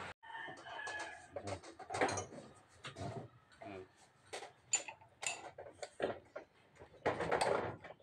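Scattered clicks and knocks of hands and metal tools on a removed mini-excavator hydraulic control valve bank.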